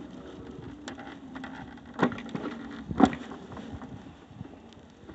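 Two sharp knocks about a second apart, the second the louder, over a faint steady buzz.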